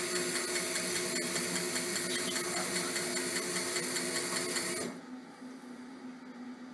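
Fuel injector tester running, pulsing an injector into its glass test tank with a rapid, even ticking over a steady hum; it cuts off suddenly about five seconds in.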